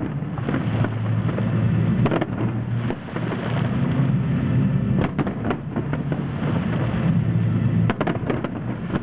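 Aerial firework shells bursting in a continuous deep rumble of booms, with clusters of sharp crackling reports about two, five and eight seconds in.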